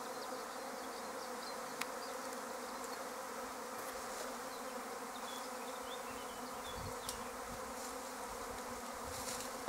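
Prime swarm of honeybees humming steadily as it clusters on a currant bush.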